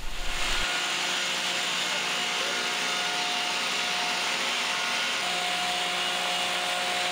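Steady mill machinery noise from an LVL press line, an even rushing sound with a few steady tones. About five seconds in, a steady hum joins it.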